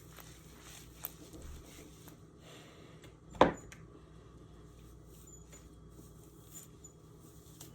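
Faint handling sounds with a few small clicks, and one loud short knock a little under halfway through.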